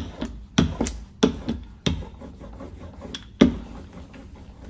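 Rubber brayer rolled back and forth over a copper plate, spreading tacky Big Ground etching ground: a low rubbing hiss with a sharp knock roughly every two-thirds of a second, the loudest about three and a half seconds in.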